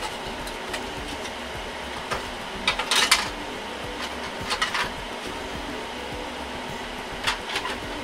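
White plastic air-duct shroud being handled and lifted out of a rack server's chassis: clusters of plastic clacks and crackles three times, loudest about three seconds in. A steady fan hum runs underneath.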